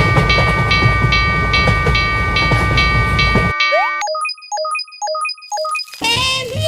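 A railroad crossing alarm rings over music, about two and a half strikes a second, while a train rumbles past. The rumble cuts off about three and a half seconds in. A short tinkling chime melody follows.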